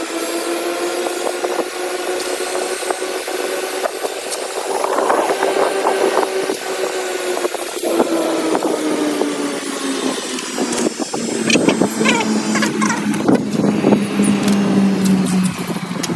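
Electric hair clippers buzzing as they cut close to the scalp, a steady hum that drops to a lower pitch about two-thirds of the way in. Scattered clicks and knocks come over the hum.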